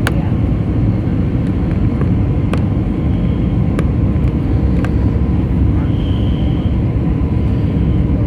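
Steady cabin noise inside an Airbus A320neo airliner: a deep, even rumble of engines and airflow with a faint steady hum. A few faint clicks, and a short high tone about six seconds in.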